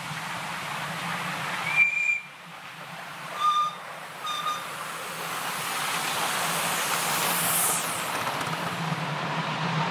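Miniature ride-on steam locomotives: one short, high whistle blast about two seconds in, then two short, lower-pitched whistle toots, over the steady hiss of steam and the running of the train. A brief high squeal comes near the end.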